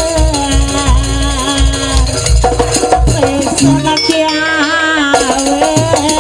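Live East Javanese jaranan gamelan music in the fast sampak style: a wavering, sliding melody over beaten metallophones and drum strokes. The deep drum beats fall away about halfway through.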